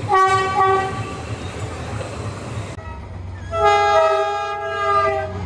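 Two blasts of a train horn: a short one of about a second at the start, and a longer one with several tones sounding together, slightly falling in pitch, from about three and a half seconds in. A steady low hum runs beneath.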